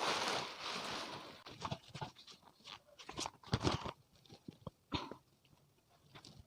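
Paper rustling and crinkling as a product manual is opened and its pages handled, strongest in the first second, followed by a string of short taps and knocks.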